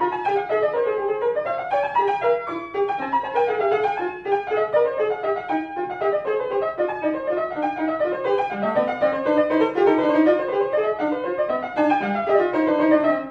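Piano music: a busy, unbroken stream of quick notes.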